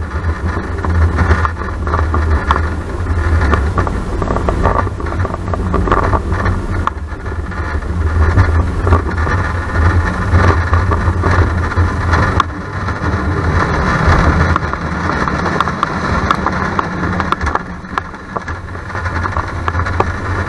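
Small family roller coaster train running along its steel track, a loud, steady low rumble with rattling from the wheels and cars.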